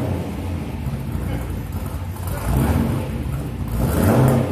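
Holden ute's LS1 5.7-litre V8 through a 2.25-inch straight exhaust, running and being revved: the revs rise about halfway through and again near the end, dropping back to idle in between.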